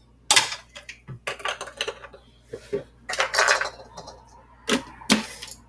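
Clear plastic blender jar and its black lid being handled: a series of separate knocks and short clatters of plastic as the lid is fitted on.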